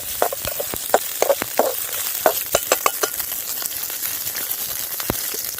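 Black peppercorns, cumin seeds and coriander seeds sizzling as they roast in a little hot oil, stirred in the pan with frequent clicks and scrapes of the spoon. The clicks thin out after about three seconds.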